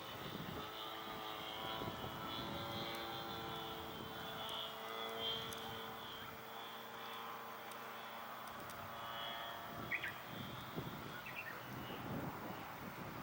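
Radio-controlled aerobatic pattern airplane in flight, its motor and propeller droning steadily with the pitch shifting slightly as it manoeuvres, then growing fainter near the end. Wind buffets the microphone.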